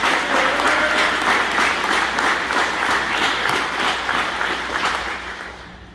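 Audience applauding: dense clapping that starts suddenly, holds steady, and dies away near the end.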